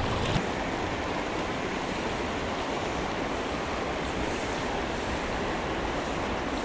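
River water rushing steadily over rocks and riffles.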